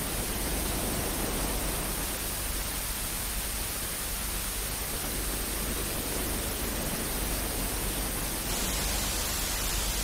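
Steady static hiss, the sound of television snow, with no voices in it. About eight and a half seconds in it turns slightly brighter and hissier.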